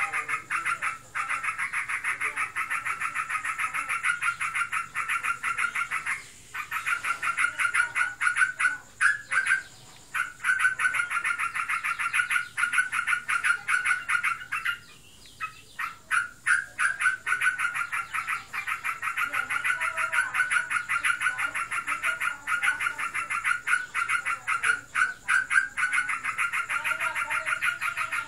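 Yellow-vented bulbul (trucukan) giving a fast, unbroken buzzing chatter, the continuous rattling song that bird keepers call ngebren. It breaks off briefly a few times. The keeper cannot tell whether this is breeding excitement or the bird in full song.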